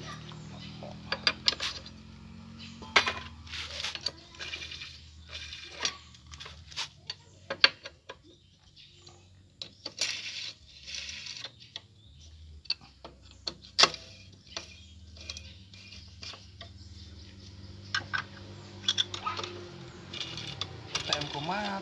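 Irregular sharp metallic clinks and taps, some ringing briefly, as metal tools and small parts are handled, over a low steady hum.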